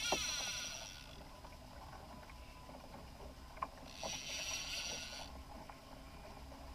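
Fishing reel buzzing in two bursts about a second long, at the start and about four seconds in, while a fish is fought on a heavily bent rod. Faint small knocks between the bursts.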